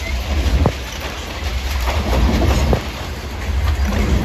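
Freight train tank cars rolling past at close range: a steady low rumble of wheels on rail with clickety-clack, and a couple of sharp metallic clicks.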